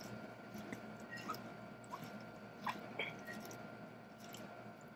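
Bare hands tossing diced cucumber, mango, tomato and pineapple in a glass bowl, giving faint wet squishes and a few soft clicks.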